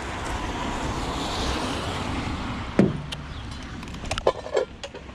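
Steady hiss of rain, then a van door shutting with one heavy thud about three seconds in, followed by a run of clicks and knocks from its handle and lock, a lock that keeps giving trouble.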